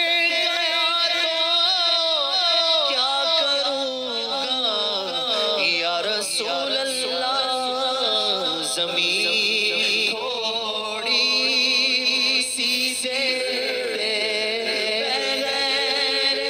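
A man singing a naat, an Urdu devotional poem, in a slow melodic line of long, ornamented notes. About a third of the way in the voice slides down in pitch.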